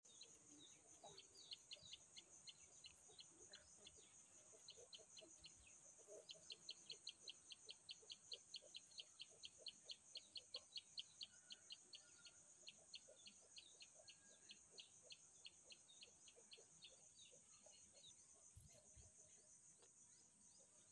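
A bird chirping in a long run of short, high notes, about five a second, loudest in the middle stretch and fading toward the end, over a steady high insect drone.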